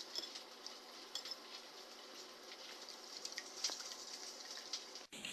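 Kitchen utensils clinking lightly against dishes over a steady faint hiss, with many small scattered ticks. The sound cuts off abruptly near the end, replaced by a different, brighter hiss.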